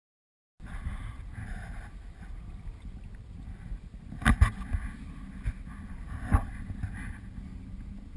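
Sea kayak under way heard from a GoPro on the boat: steady wind rumble on the microphone and water noise, with sharp knocks about four seconds in and again near six and a half seconds. The sound cuts in just after the start.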